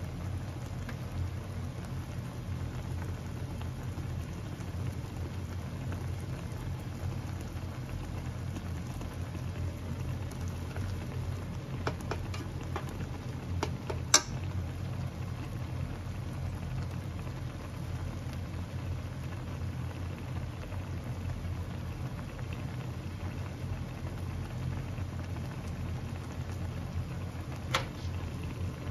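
Instant ramen broth simmering in an aluminium pot: a steady bubbling hiss over a low hum. A few light clicks come around the middle, the sharpest about halfway as wooden chopsticks knock against the pot, and one more click comes near the end.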